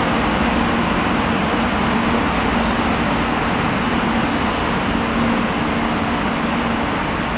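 Steady vehicle noise: a continuous even rush with a faint low hum that comes and goes.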